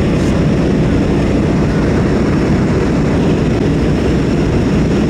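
Loud, steady drone of a propeller airplane's engine heard inside the cabin of a skydiving aircraft, a deep rumble with a faint steady hum over it.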